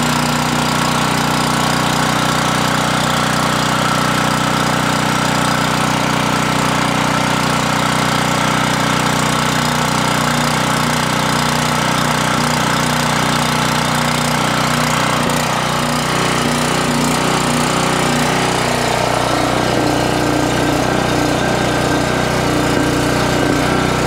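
Single-cylinder Briggs & Stratton 10 HP OHV engine of a PowerBoss 5600-watt portable generator running steadily with no electrical load yet, shortly after a cold start.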